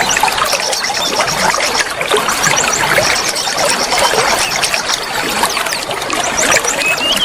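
Water trickling and splashing steadily, with a songbird's fast runs of short, evenly spaced high notes coming and going above it.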